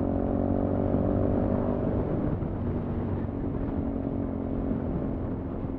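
Sinnis Terrain 125's air-cooled 125 cc engine running at a steady cruising speed under way, breathing through a Toro aftermarket exhaust can, with low wind rumble. The engine note eases slightly about two seconds in.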